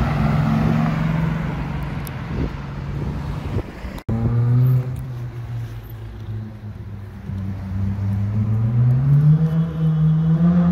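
Mercedes-AMG GT roadster's V8 engine running as it drives past with a steady tone. About four seconds in, the sound cuts to another sports car's engine that rumbles low and then revs up in a rising pitch as it accelerates.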